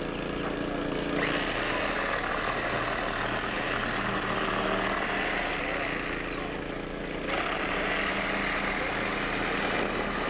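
Electric reciprocating saw cutting through a laminated car windshield. Its motor whine rises sharply as it starts about a second in, winds down around six seconds, and starts again about a second later, with a rasping cutting noise under it. A steady engine hum runs underneath.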